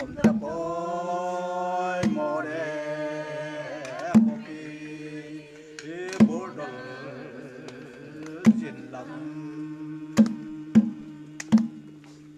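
Unaccompanied-style folk singing with a small hand-struck barrel drum beating out a slow pulse, one stroke about every two seconds, then three quicker strokes near the end as the singing thins out.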